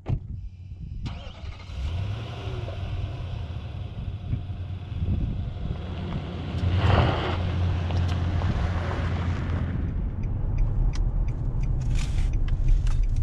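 A V8 SUV's engine and tyres on a dirt lot as it drives off, growing louder to a peak about seven seconds in. Near ten seconds this gives way to steady road and wind noise inside the car at highway speed.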